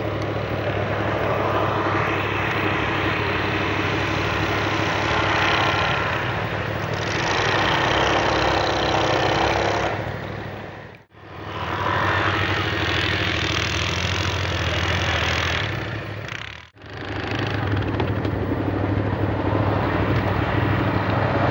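Max II 6x6 amphibious ATV's engine running under load as it is driven through snow, its note rising and falling with the throttle. The sound breaks off briefly twice, about eleven and seventeen seconds in.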